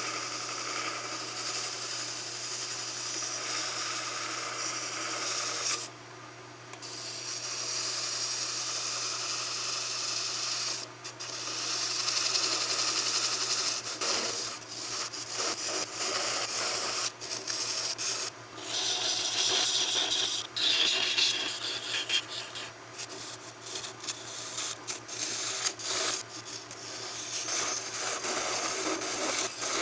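Sharpened steel vacuum-cleaner extension wand shaving wood spinning on a wood lathe: a rough, hissing scrape that breaks off and starts again many times, more choppily in the second half. A steady low hum from the lathe runs underneath.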